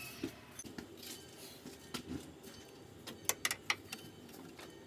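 Light metallic clicks and clinks of a wrench on the brass union nut of the hydragas hose at the sphere, scattered through, with three sharp clicks close together about three and a half seconds in.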